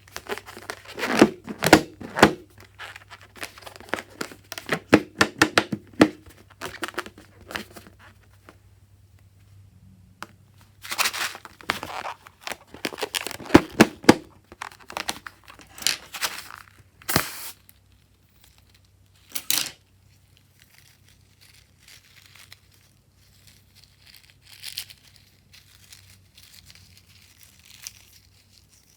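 Close-up handling of slime and its materials: sticky crackles, tearing and crinkling in irregular bursts, busiest in the first two-thirds and only faint scattered clicks near the end.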